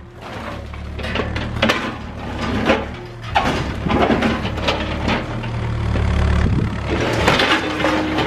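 Cat 305E2 mini excavator's diesel engine running under load while its bucket breaks and drags concrete and rebar. Repeated crashes and scrapes of debris come about once a second over the steady engine hum.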